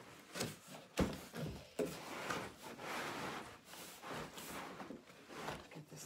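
Plastic wrapping rustling and a cardboard box scraping as a heavy boxed upright vacuum cleaner is lifted out, with a few sharp knocks, the loudest about a second in.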